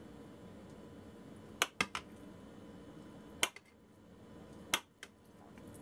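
Chef's knife cutting through a block of firm tofu and clicking against a ceramic plate: about six sharp clicks, three in quick succession a little under two seconds in, then single ones spread through the rest.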